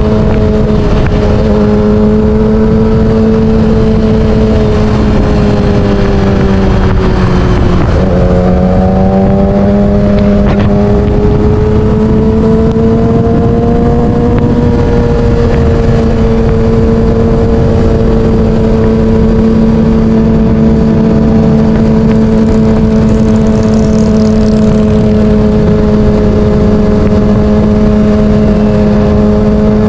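Yamaha R6's 600cc inline-four engine running at steady cruising revs, with wind buffeting the microphone. The engine pitch dips briefly about eight seconds in, climbs back over the next few seconds, then holds even.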